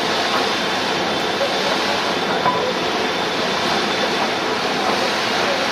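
Steady rushing of water gushing out of a burst water main under pressure, an even noise with no breaks. The main gave way during a pressure test.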